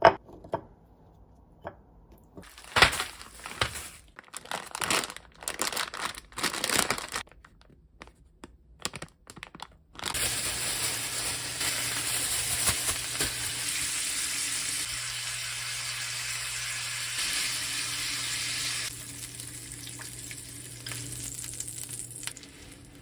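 Thin-sliced beef (woo-samgyeop) sizzling in a hot cast-iron skillet, starting abruptly about ten seconds in and softening a few seconds before the end. Before it, short bursts of crinkling plastic and kitchen handling noise.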